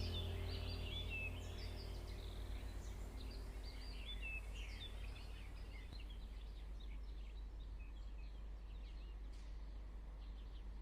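Small birds chirping and twittering in many short, high calls that thin out and fade away about halfway through, over a steady low hum.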